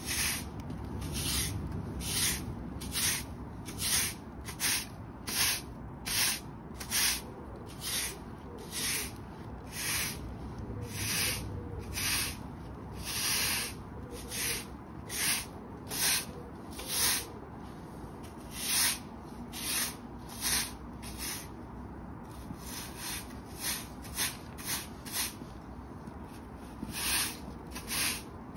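Hard-bristle push broom sweeping dirt and debris across concrete paving stones: quick repeated strokes, about one or two a second, with the odd longer stroke and a sparser stretch past the middle.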